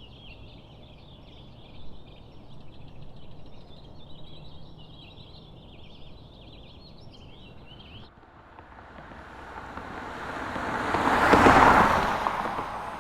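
Birds chirping for about eight seconds, then cutting off abruptly. A rushing noise then swells to its loudest point about eleven seconds in and eases off.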